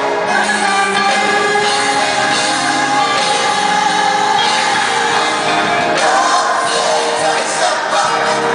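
Choir singing long held notes in several parts, the chord changing about six seconds in.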